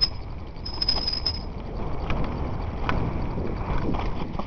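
Mountain bike rattling and crunching down a rocky gravel trail, tyres rolling over loose stones with scattered knocks and clicks from the bike, over a low rumble. A thin high squeal sounds briefly in the first second and a half.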